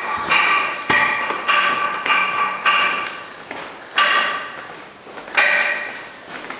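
Wooden semantron (monastery wooden bell) being struck with a mallet: a quick run of five resonant knocks, then two more spaced farther apart, each with a short pitched ring.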